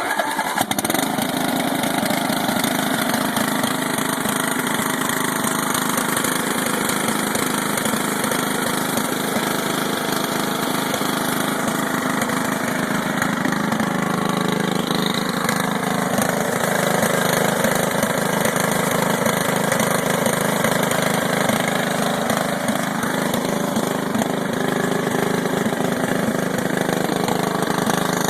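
17 hp Briggs & Stratton engine of a Scotts/John Deere S1742 lawn tractor running steadily, just after starting while still warm from earlier running.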